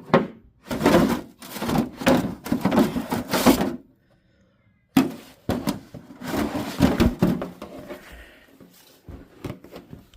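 Rummaging through stored things in a garage: objects being shifted, knocked and clattered about in bursts, with a brief pause a few seconds in and a few small knocks near the end.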